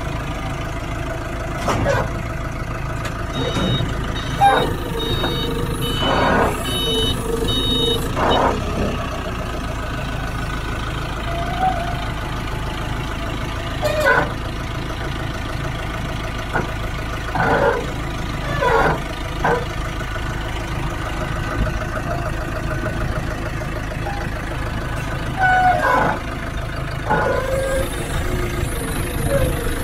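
Forklift engine running steadily as it works to push a heavy machine into a container. A repeated beeping alarm sounds from about three to eight seconds in, and brief louder noises break in now and then.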